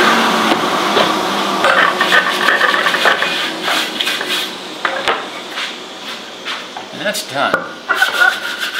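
Solid wood chair-seat blank being slid, lifted and knocked against a plywood saw jig, with scraping and rubbing as a hand brushes sawdust off the freshly scooped seat. Many short clicks and knocks. Behind them the table saw's running noise fades away over the first few seconds.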